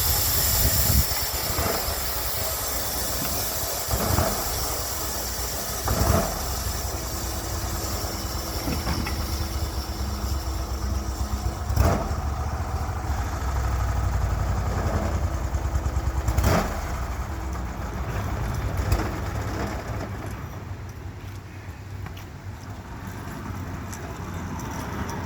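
Portable band sawmill's engine running steadily, with a string of sharp knocks and clunks every few seconds and the sound easing off toward the end.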